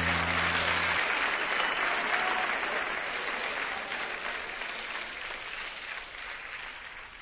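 Audience applause that fades away gradually. About a second in, the last held low note of the music stops.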